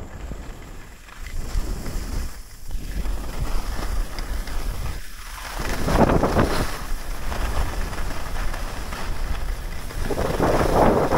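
Wind buffeting the microphone over the rush and scrape of edges sliding on groomed, hard-packed snow during a downhill run, with louder scraping surges about six seconds in and again near the end.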